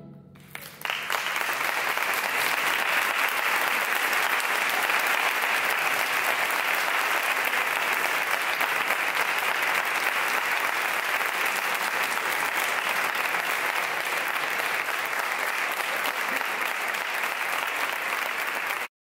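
Audience applauding after a band's closing chord. The clapping breaks out about a second in, holds steady, then cuts off suddenly near the end.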